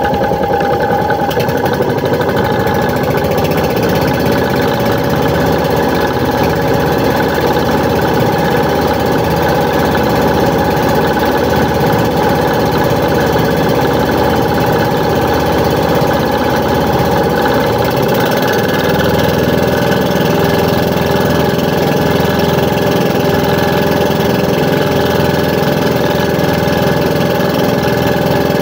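Small outrigger fishing boat's motor running steadily while the boat is underway.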